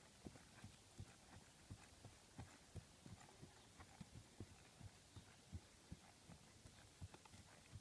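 Faint, regular hoofbeats of an unshod horse moving over hard, uneven grass ground, about three dull thuds a second.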